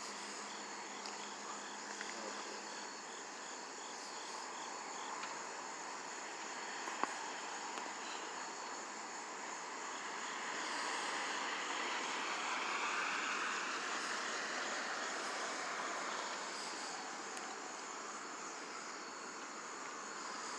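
Night insect chorus of crickets: a steady high trill with a regular pulsing chirp under it. Partway through, a broad swell of distant noise rises and fades over several seconds, and there is a single sharp click.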